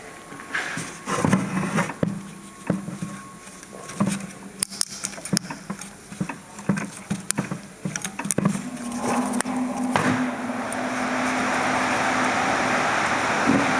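Irregular metallic clicks and taps of brake pad hardware clips being worked out of the caliper mount. About two-thirds of the way in, a steady vehicle engine hum with rising noise comes in and becomes the loudest sound.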